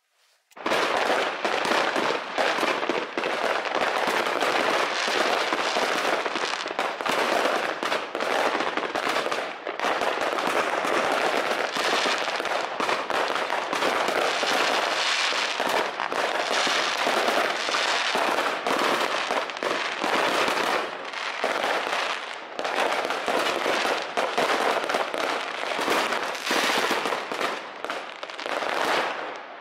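A dense, continuous barrage of fireworks: many rockets and firecrackers going off at once in overlapping bangs and crackling, starting abruptly about half a second in.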